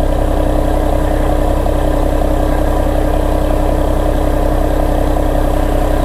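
Diesel truck engine idling steadily: an even, unbroken drone with a constant hum over a low rumble.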